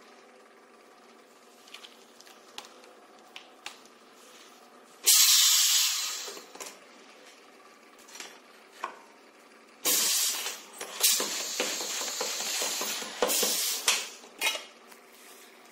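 Compressed air hissing from a pneumatic flap wheel wrapping machine: one sudden burst about five seconds in that fades over a second, then a longer run of hissing with several surges later on. Light metallic clicks come in between.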